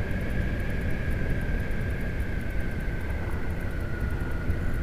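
Honda Hornet 900 motorcycle cruising at a steady speed: its inline-four engine running through newly fitted replacement exhaust silencers, under a steady rush of wind and road noise. A steady high whine runs over it and sags slightly in pitch near the end.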